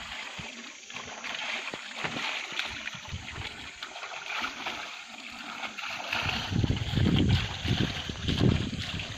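Water of a small woodland stream trickling and splashing. From about six seconds in, a heavy low rumbling on the microphone rises over it.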